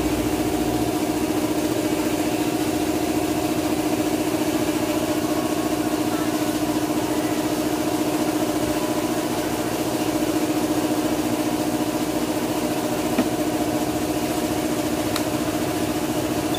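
A small engine idling steadily at an even pitch, with one short click about 13 seconds in.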